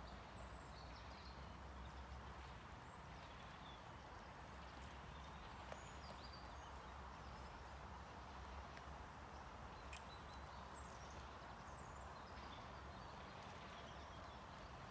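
Faint sounds of mouflon grazing: grass being torn and chewed, with a few sharp clicks, over a steady low rumble and some faint high chirps.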